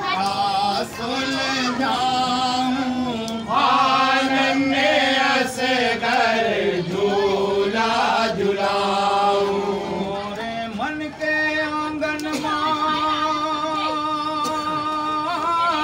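Men's voices singing a devotional kalam, drawing out long held, wavering notes with no words clearly picked out.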